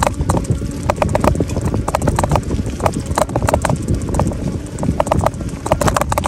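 Wind rumbling on the microphone of a moving e-bike, with irregular sharp clicks, several a second, throughout.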